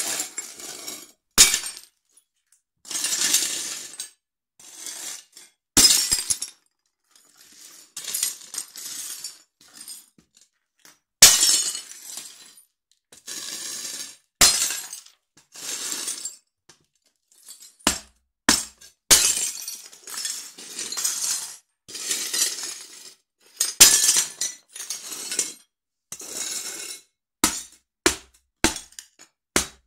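Ceramic dinner plates cracking and breaking under stamping platform high heels, with the broken pieces crunching and clinking against each other. A string of separate sharp breaks and short crunching bursts comes every second or two, quicker and sharper near the end.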